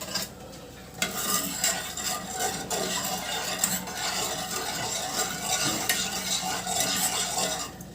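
A spoon stirring lemon sugar syrup as it heats in a pot, a steady scraping with small clicks against the pot, starting about a second in.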